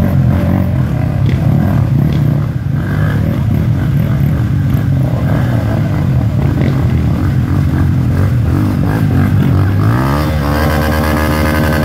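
Dirt bike engines revving as a bike rides through shallow river water. About ten seconds in, a dirt bike comes up the bank close by: its engine revs up sharply and then holds a steady, higher note.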